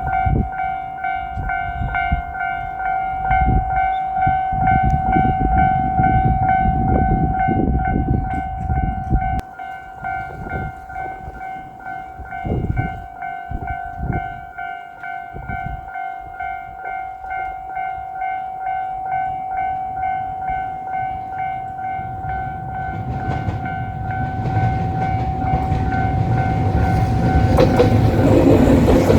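Japanese level-crossing alarm bell ringing continuously. Over it comes a low rumble, loud over the first third, and from about three quarters of the way in a JR Shikoku 2700 series diesel limited-express railcar is heard approaching, growing louder until it drowns the bell at the end.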